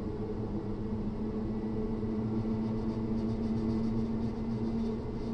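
Class 317/7 electric multiple unit running at a steady speed, heard from inside a passenger saloon. Its nose-suspended traction motors and gearing give a steady low hum over the rumble of the wheels on the track.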